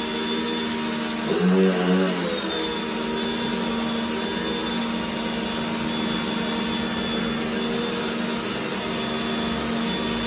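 Pioneer P1 electric pressure washer running steadily, its motor and pump whining under the hiss of the high-pressure water jet. About a second and a half in, the machine briefly changes pitch and gets louder before settling back to its steady run.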